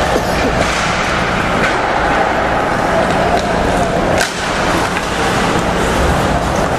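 Steady arena noise during an ice hockey game, with skating and a few sharp clicks of sticks and puck, the loudest about four seconds in.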